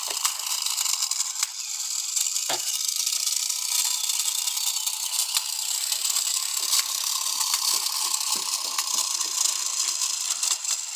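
Small solar-powered electric motor of a toy boat running its plastic propeller: a steady high buzz with a light rattle.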